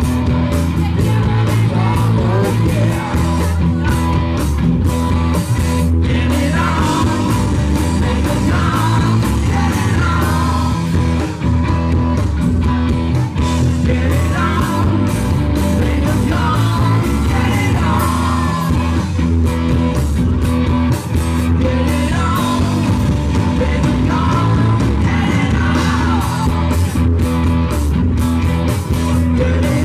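Live rock band playing electric guitars, bass guitar and drums, amplified through a small PA, with a man singing.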